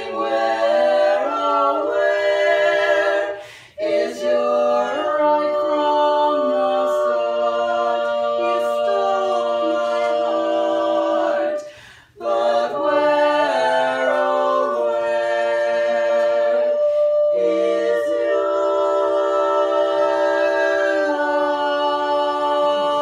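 Women's vocal quartet singing a cappella in four-part harmony. The singing breaks briefly about four and twelve seconds in, and ends on a long held chord.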